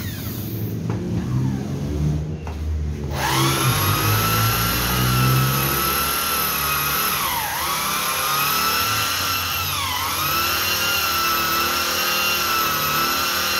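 Electric drill starting up about three seconds in and running with a steady high whine that sags briefly and recovers about three times as the bit is loaded, working on a chainsaw's metal housing.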